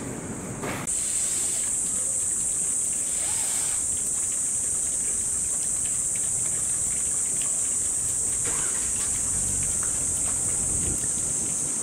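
Cicadas in a steady, shrill, unbroken drone that begins about a second in.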